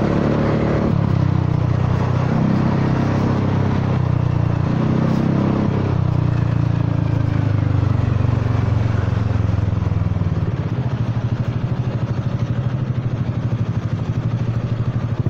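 Honda Forza 300 scooter's single-cylinder engine running through an aftermarket exhaust at low speed, the throttle opened and eased a few times in the first half. In the second half it settles near idle with a slow, pulsing exhaust beat.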